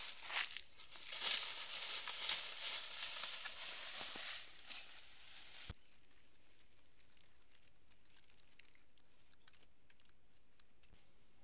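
Dry grass and fallen leaves rustling and crackling as a dog roots through them, for about five seconds. Then the rustle stops abruptly with a sharp click, leaving only faint, scattered ticks.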